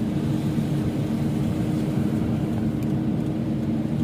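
Car driving at a steady low speed, heard from inside the cabin: a steady low drone of engine and tyre noise with a constant hum.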